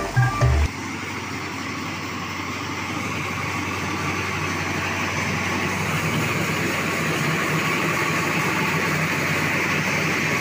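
Rice mill machinery, including the rice polisher, running with a steady mechanical noise that slowly grows a little louder. Background music cuts off just under a second in.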